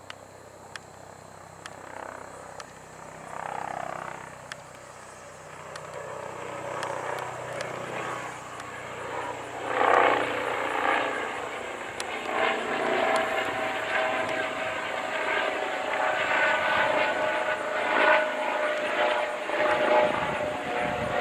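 Airbus H135 (Eurocopter EC135) twin-turbine helicopter on approach, its rotor noise growing steadily louder as it comes closer, with a pulsing rotor chop. A steady whine joins about halfway through.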